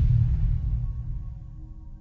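Intro logo-reveal sound design: a deep, low boom fades away, and soft sustained ambient synth tones come in underneath about a second in.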